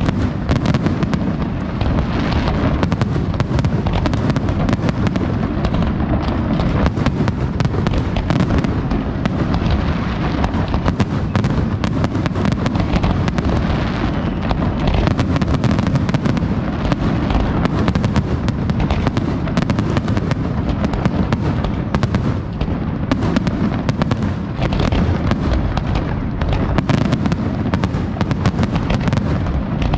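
Fireworks display going off in a dense, unbroken barrage, many bangs a second, sharp cracks mixed with deep booms.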